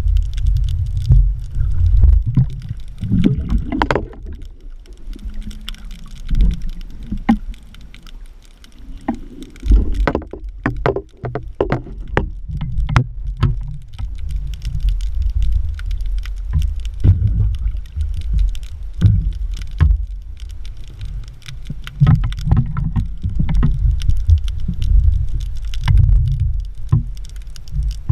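Water sloshing and rumbling against the microphone in uneven surges, with scattered clicks and knocks, typical of an action camera's audio while spearfishing in the water.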